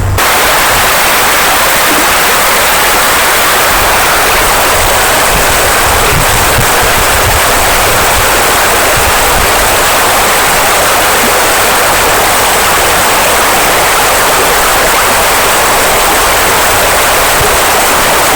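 Loud, steady rush of river water, an even noise with no breaks.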